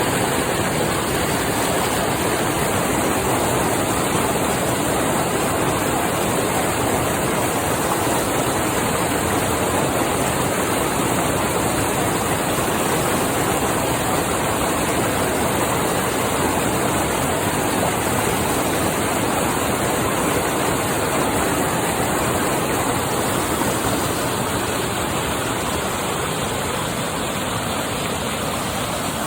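Mountain river rushing steadily, a dense even roar of flowing water, easing slightly in the last few seconds.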